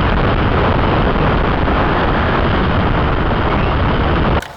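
Loud, steady rushing noise of wind buffeting a microphone, with no clear tone in it; it cuts off suddenly near the end.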